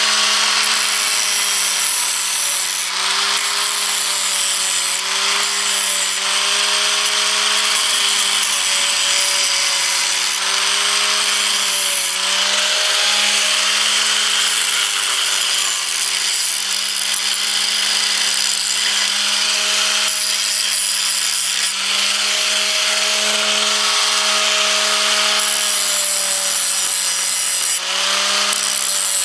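Electric grinder running continuously against galvanized steel, grinding the zinc coating off a harrow part so it can be welded and cutting one side down. The motor's pitch dips and recovers slightly as the wheel is pressed into the metal, under a steady high hiss.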